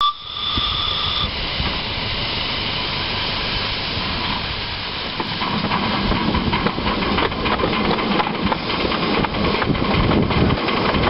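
Sweet Pea miniature live-steam locomotive hissing steam steadily, with a brief high tone at the very start. From about halfway it gets louder with an uneven low rumble and chuffing as the engine moves off along the track.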